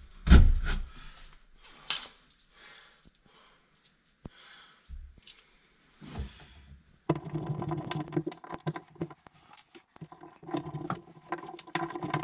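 Handling noise from work at a wall: a knock near the start, then scattered small clicks and rustling. About seven seconds in, a dense, continuous rattle of small clicks sets in suddenly.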